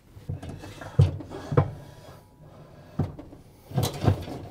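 A direct-drive washer's cast gear case being pushed down onto its mounting legs, giving a handful of separate knocks and clunks. The loudest comes about a second in.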